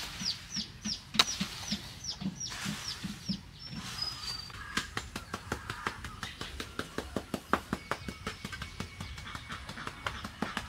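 A bird calling in a quick series of falling high peeps, about three a second, for the first few seconds, with one sharp loud click about a second in. Then comes a fast run of sharp clicks and scrapes from a tool working the cement top of a block sink.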